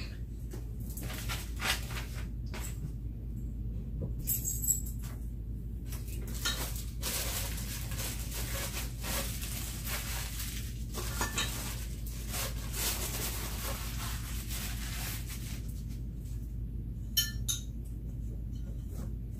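Irregular clinks, knocks and rattles of white metal furniture tubing and small parts being handled and fitted together, with stretches of rustling and a sharper run of clinks near the end.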